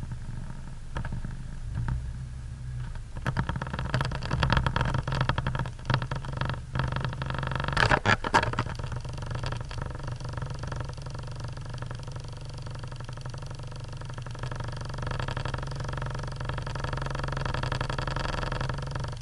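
Hyundai Galloper 4x4's engine running steadily while it climbs a rough dirt track, heard from inside the cabin. About three seconds in, a run of knocks and rattles begins as the vehicle jolts over the bumps; it is loudest near the eighth second, then the engine hum carries on alone.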